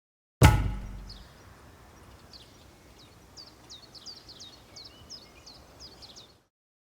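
A single deep thump that dies away over about a second, then faint outdoor background with a small bird chirping repeatedly: quick, high, falling chirps from about three seconds in until the sound cuts off near the end.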